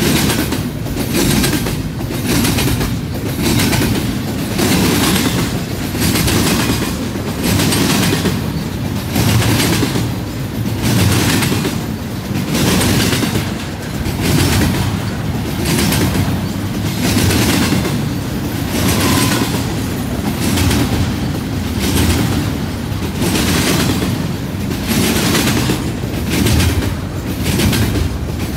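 Double-stack container well cars of a freight train rolling past, their wheels making a steady clickety-clack that swells and fades in a regular beat about every two seconds.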